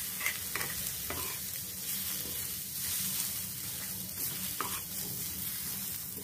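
Wooden spatula stirring and scraping sliced onions and garlic cloves across a hot flat iron tawa, with a steady sizzle as they dry-roast without oil. A few sharper scrapes come about a second in and again at about four and a half seconds.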